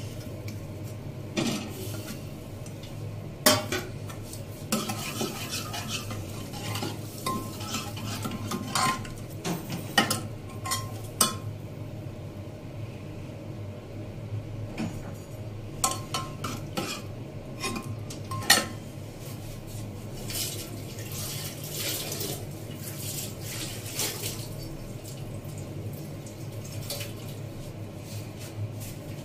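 Steel ladle stirring dal in a pressure cooker, with irregular clinks and scrapes of metal against the pot, fewer in the last several seconds.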